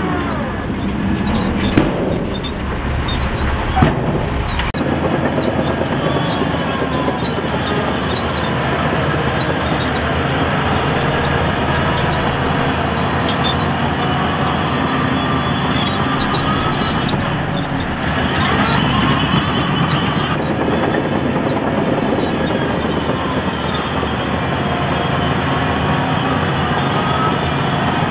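Heavy diesel earthmoving machinery at work: engines running under load, their pitch rising and falling, with two sharp knocks in the first few seconds.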